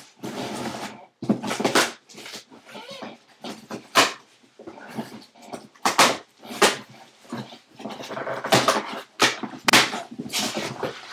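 Irregular bursts of ripping and tearing packaging, with sharp rips among them, as a sealed trading-card case and its wrapping are torn open.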